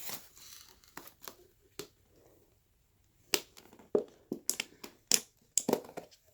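Packaging being handled by hand: sharp, irregular clicks and crackles, sparse at first and coming more thickly in the second half.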